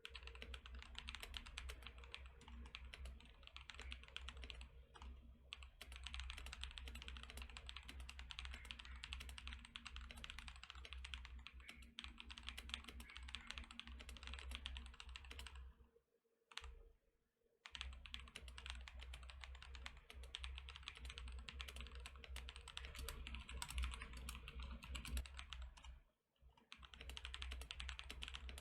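Fast, continuous typing on a Techware Phantom TKL mechanical keyboard with unlubricated Akko CS Silver linear switches, a dense stream of key clacks. It pauses briefly twice, once for about a second past the middle and once shortly before the end.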